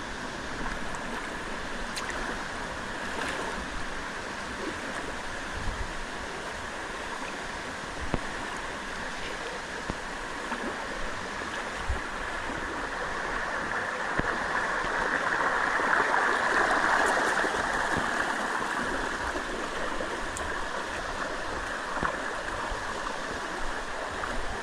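Waterfall water rushing steadily over rock, swelling louder for a few seconds about two-thirds of the way through, with a few faint knocks.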